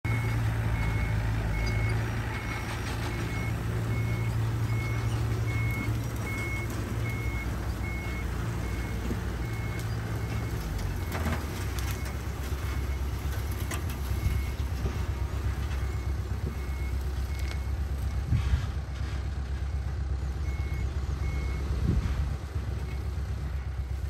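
Heavy construction machinery at work: a diesel engine running steadily while a reversing alarm beeps about twice a second, stopping about ten seconds in and starting again near the end. The engine note changes about eleven seconds in.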